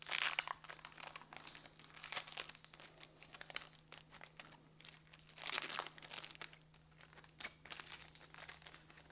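Trading-card pack wrapper being crinkled and torn open by hand: irregular crackling, loudest at the start and again about five and a half seconds in, over a faint steady electrical hum.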